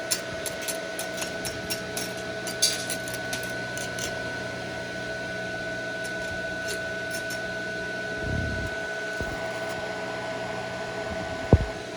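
Welding machine's cooling fan running with a steady whine and hum, with light clicks at irregular intervals over the first few seconds and a single thump near the end.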